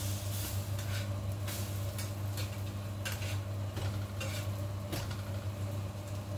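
Cooking in a frying pan: a utensil scraping and clinking against the pan several times over the sizzle of frying, with a steady low hum throughout.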